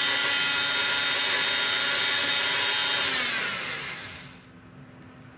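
Bosch PMF 250 CES oscillating multi-tool running at a steady high speed. It is switched off about three seconds in, and its motor whine falls in pitch as it winds down to a stop.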